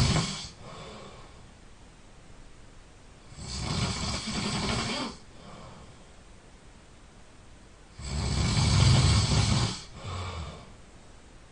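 A sleeping person snoring loudly: two long snores about four and a half seconds apart, each under two seconds, with quieter breathing between, and the tail of a snore at the very start.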